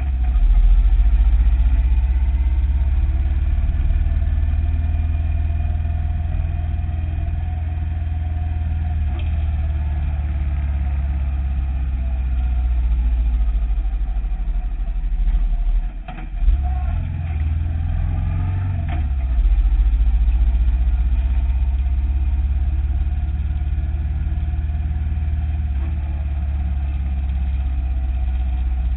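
Motorcycle engine running while riding along a road, a steady low rumble picked up by a camera mounted on the bike. A little past halfway the level drops sharply for a moment and then jumps back up.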